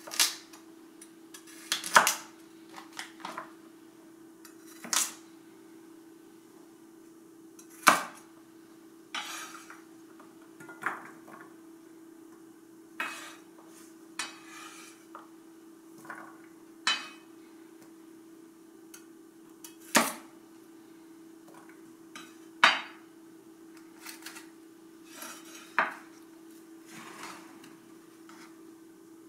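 A cleaver chopping carrots on a wooden cutting board in separate, irregular sharp knocks, with a clatter of pieces going into an enameled cast-iron skillet. A steady low hum runs underneath.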